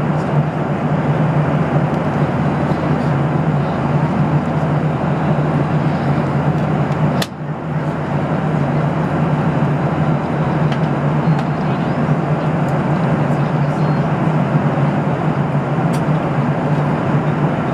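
Steady drone of an airliner cabin in cruise at about 36,000 feet: airflow and jet-engine rumble with a low hum. About seven seconds in there is a single sharp click and the level dips for a moment.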